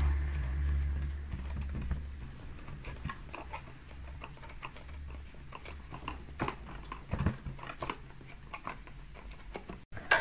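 Small, irregular plastic clicks and scratches from fingers working at the plastic mount and buckle that hold a GoPro Hero7 Silver in its box, trying to release the camera. A low rumble of handling in the first two seconds.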